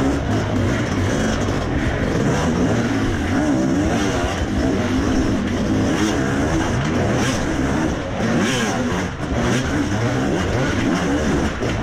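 Enduro motorcycle engine, heard from on the bike, revving up and down over and over with short throttle blips as it rides down stone staircases.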